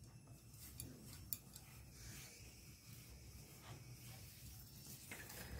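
Near silence with faint rubbing of an oiled ball of dough being turned by hand on a wooden rolling board, and one small tap about a second and a half in.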